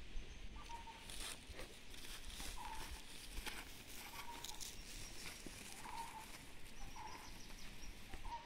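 Footsteps crunching through dry stubble grass, with short high animal calls recurring every second or two.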